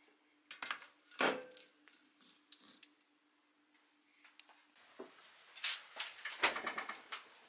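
Aluminium drink cans knocking and clattering against a plastic can holder and a stainless-steel counter as they are handled, with a sharp knock about a second in and a run of clatters near the end. A faint steady hum underneath stops a little past halfway.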